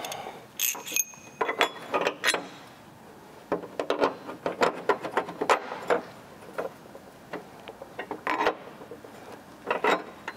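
Diagonal cutters snipping plastic out of a truck's front bumper grille: an irregular run of sharp clicks and snaps, a few with a brief high ring near the start.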